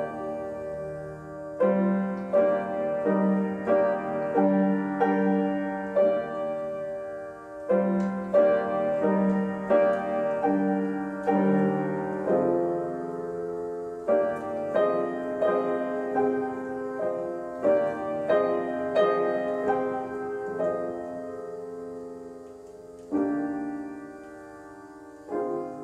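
Piano music: a slow melody of single struck notes left to ring, with brief pauses between phrases.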